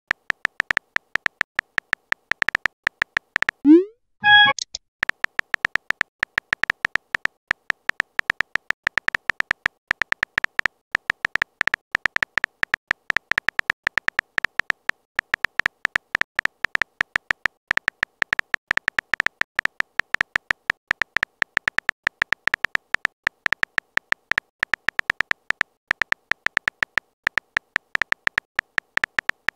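Chat-app typing sound effect: a rapid, even stream of short clicking beeps as a message is typed letter by letter. About four seconds in, a short, louder rising swoop, the message-sent sound, interrupts it before the typing clicks resume.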